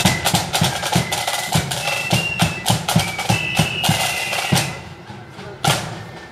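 Marching band playing: side drums beating a quick, even rhythm about four strokes a second under a high melody line. The tune stops about four and a half seconds in, and then a single drum beat comes about once a second to keep time.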